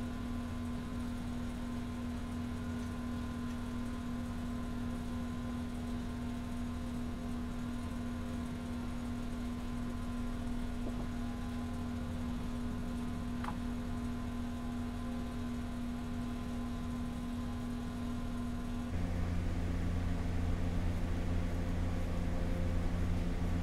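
Steady machine hum with a fixed tone, switching about nineteen seconds in to a louder, lower drone.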